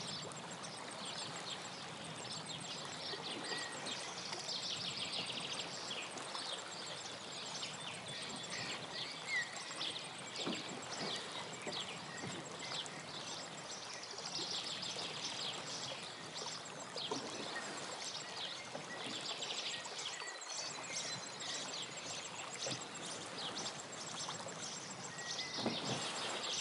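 Lake water splashing and lapping around a wooden rowing boat as it is rowed along, with faint high chirping above it.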